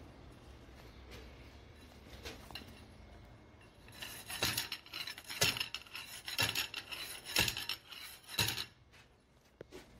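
Metal conduit pipe being handled, rubbing and scraping in rasping strokes about once a second, starting about four seconds in.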